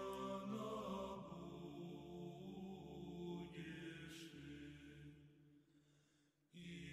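Soft background chant with long held notes. It fades out about five seconds in, falls silent briefly, and comes back just before the end.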